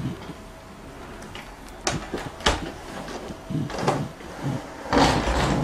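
Ikea storage drawers fitted with wheels being handled and rolled under a bed: a couple of sharp clacks about two seconds in, then heavier rolling and knocking near the end as a drawer is pushed back.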